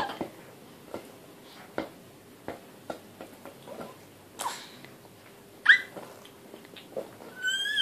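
Baby's short high squeals during play: a brief one about halfway through, a sharper falling squeal a second later, and a longer call near the end that runs into babbling. Soft taps from hands on a plastic ball are scattered between them.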